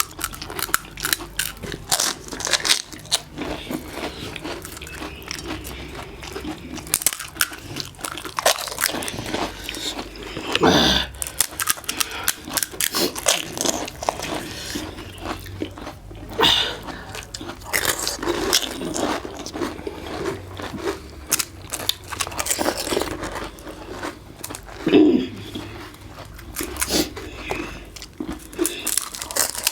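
Pani puri being eaten: crisp hollow puri shells crunching as they are bitten, with chewing and frequent short crunches.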